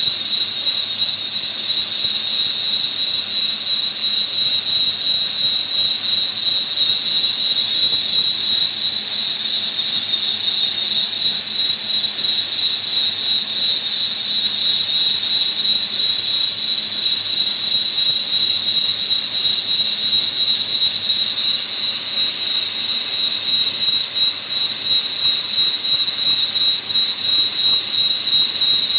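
Lathe turning metal: a steady high-pitched squeal over a noisy hiss of cutting.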